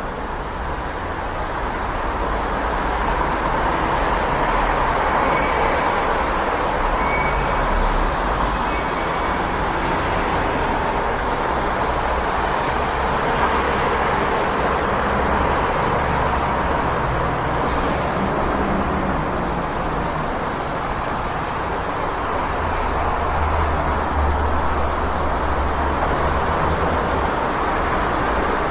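City street traffic: a steady wash of passing cars, buses and trucks, with engine rumble swelling and easing as vehicles go by.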